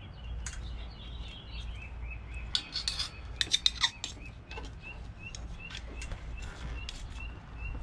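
Metal clinking and rattling of tools and exhaust parts being handled, loudest in a quick cluster about halfway through. A small bird chirps in the background, a steady run of short rising chirps, nearly three a second, through the second half.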